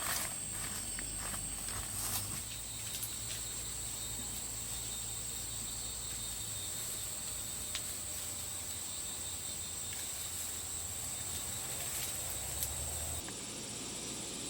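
Insects shrilling steadily in one high, even tone, with a few sharp clicks in the first two seconds. The shrill drops abruptly a little before the end.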